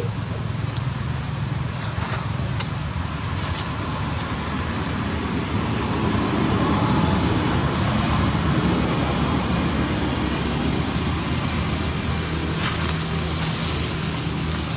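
Road traffic: a motor vehicle's engine hum and road noise grow louder to a peak in the middle, then ease off, with a few faint clicks.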